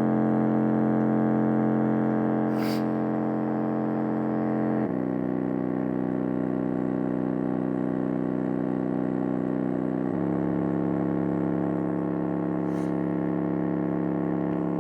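Music made of long held, buzzy bass-heavy synth notes, changing pitch twice, played loud through a car sound system's subwoofer and speakers.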